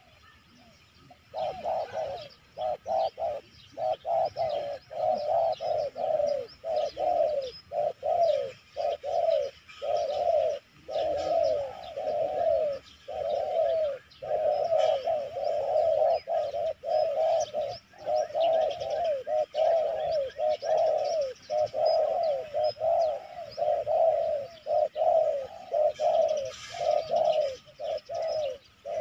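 Spotted doves cooing: a steady run of short, falling coos that starts about a second in and keeps going with only brief breaks.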